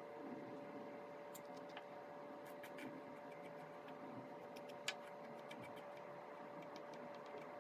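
Faint, irregular ticks and taps of a straightened paper-clip tamping tool packing a sawdust and ink mixture into a crack in a wood blank, with one sharper click about five seconds in.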